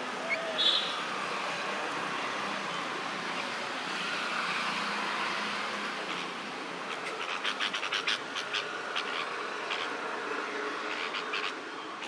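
Songbird nestlings begging for food: a brief high call about half a second in, then a fast run of short, sharp high chirps in the second half, over a steady background hiss.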